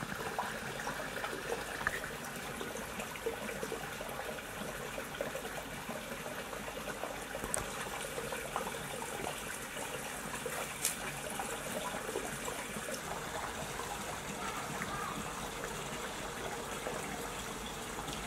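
Steady trickling of running water.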